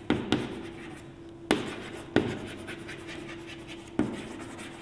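Chalk writing on a chalkboard: scratchy strokes with about five sharp taps as the chalk strikes the board.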